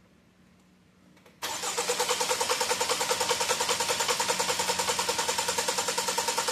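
Land Rover 2.0-litre four-cylinder engine cranked over on the starter, kicking in suddenly about a second and a half in with a fast, even pulsing rhythm. It spins without firing because the fuel injectors are unplugged for a crank-no-start timing test.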